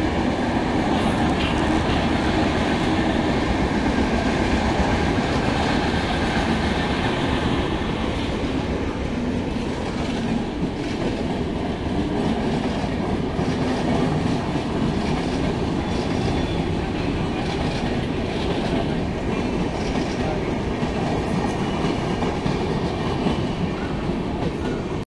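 Passenger train running along the track: a steady rumble and rattle of wheels on rail, with faint clacks as the wheels pass over rail joints.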